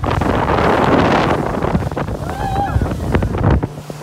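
Wind buffeting the microphone over rushing, splashing water from a motorboat under way at speed. The noise dips briefly near the end.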